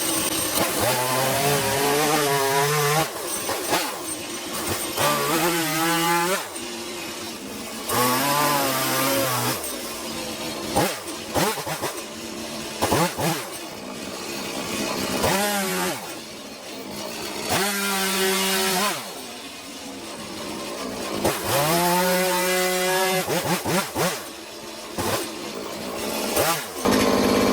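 Chainsaw engine revving up and down again and again as the bar cuts into a wooden stump, making the first rough blocking cuts of a bear carving. Its pitch climbs under the throttle during each cut and drops back between cuts.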